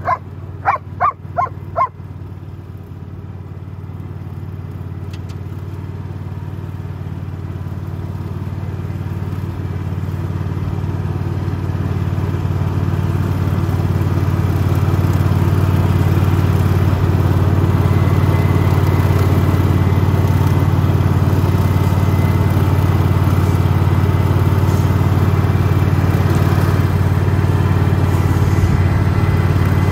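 Single-cylinder petrol engine of a riding lawn mower running steadily, growing louder over the first fifteen seconds or so and then holding level. A German shepherd barks about five times in quick succession at the start.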